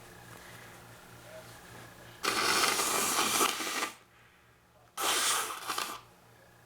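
A woman blowing her congested nose into a tissue twice: a long blow of about a second and a half, then a shorter one about a second later.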